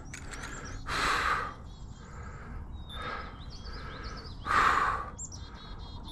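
Small birds chirping in short twittering calls, with two loud, short rushes of noise, about a second in and again about four and a half seconds in, and a fainter one between them.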